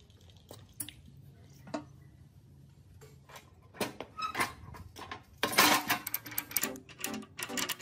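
Metal clanking and rattling from an old, rusty hand pallet truck being handled. A few sharp separate clinks come first, then a busier run of clatter starts about three and a half seconds in and is loudest about five and a half seconds in.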